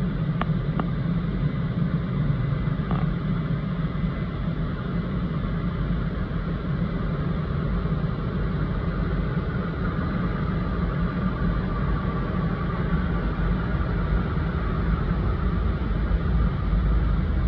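Automatic car wash heard from inside the car: water jets spraying onto the windscreen and body with a steady low rumble, a few faint clicks in the first seconds.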